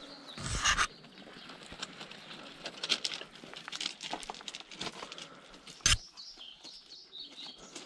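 A dog and a walking person crunching over gravel, with the dog sniffing as it searches and a rope long line rustling in the hand. There are two louder bumps, one about half a second in and a sharp one about six seconds in.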